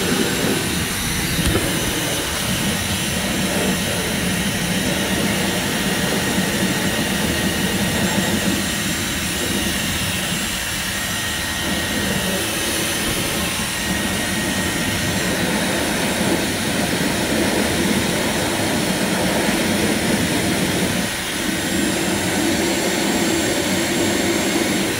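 Hand-held hair dryer blowing steadily, drying a dog's freshly washed fur.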